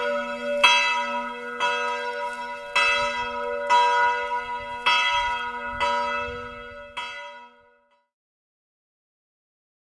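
Church bells ringing, struck about once a second with a long ring between strokes; the last stroke comes about seven seconds in and its ring dies away. This is the ringing-in of the weekend holy day.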